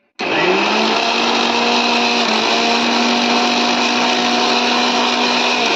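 Electric kitchen mixer grinder switched on, its motor spinning up with a short rising whine and then running steadily at full speed, grinding wet leaves with a little water into a paste.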